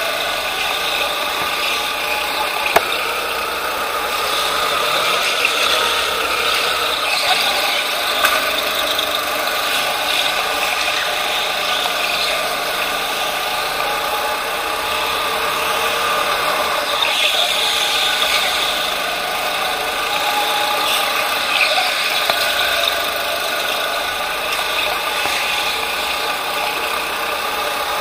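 Onboard sound of a racing kart being driven hard round a track. Its motor and drivetrain run with a rattling mechanical noise that rises and falls in pitch through the corners, with a couple of short knocks.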